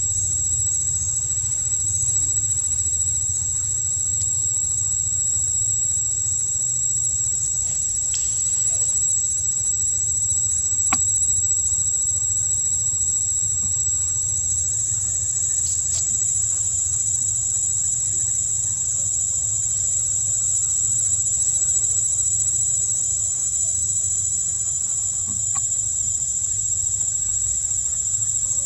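Insects droning steadily at a high pitch, over a steady low rumble, with a single faint click about eleven seconds in.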